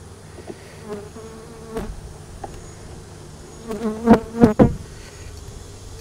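Honeybees buzzing around an open hive, a faint steady hum. Between about four and five seconds in, several bees buzz loudly and briefly close past the microphone.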